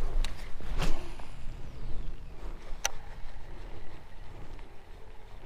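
Low wind and water rumble with a few sharp clicks and knocks, the loudest about a second in and another short sharp click near the middle.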